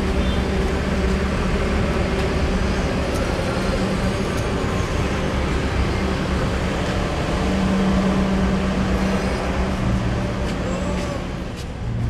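Downtown street traffic: a steady wash of road noise with a heavy vehicle's low engine hum running close by, loudest about two-thirds of the way through.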